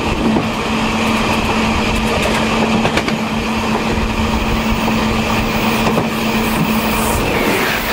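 Taiwan Railways Chu Kuang express passenger train running along the rails, heard from its rear parlor car: a steady rumble with a constant hum, and two sharp clicks from the wheels about three and six seconds in.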